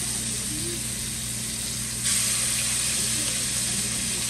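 Bacon pieces sizzling in a frying pan: a steady frying hiss that grows louder about two seconds in.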